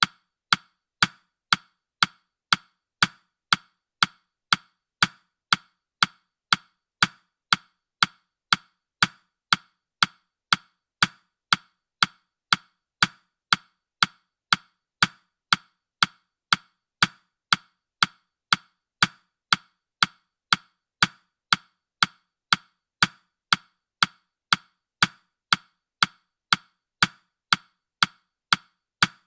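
Ticking clock sound effect: short, sharp ticks at a steady two a second.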